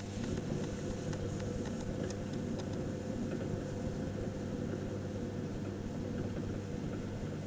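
Electric potter's wheel motor running with a steady hum as the wheel spins.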